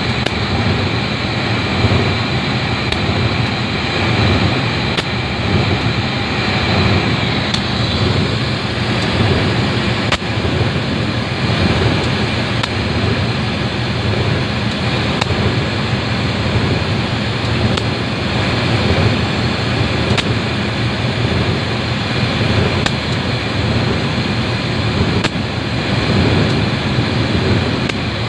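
Diesel-electric locomotive idling at a standstill close by, a steady engine hum with the rushing of its cooling fans. A faint high whine in it stops about seven seconds in.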